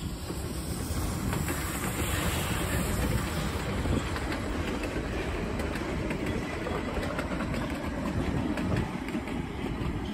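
Train rolling by on the rails: a steady rumble of wheels on track, with fine clicking throughout.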